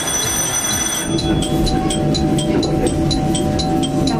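Isumi Railway diesel railcar running over pointwork into a station, heard from the front of the car: a steady rumble with a high-pitched wheel squeal in the first second, then a rapid regular ticking at about four a second over a steady tone.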